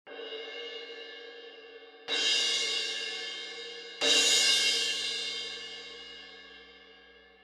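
SABIAN AA 18-inch suspended cymbal struck three times with a mallet, about two seconds apart, each crash louder than the one before and left to ring. The last crash fades slowly away.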